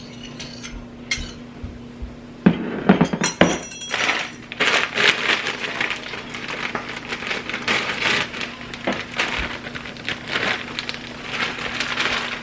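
Pots, pans and cooking utensils clinking and clattering on a kitchen stovetop. There are a few separate clinks, then a louder clatter at about two and a half seconds, then steady busy scraping and clattering of a utensil in a pan from about four seconds in.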